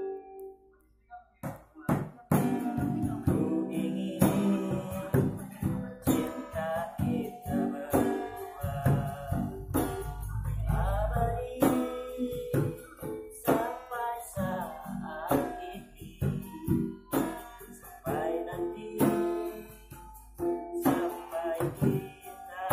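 Acoustic guitar strummed together with a hand-played drum keeping a steady beat, and a man singing along. It starts after about two seconds of near quiet at the beginning.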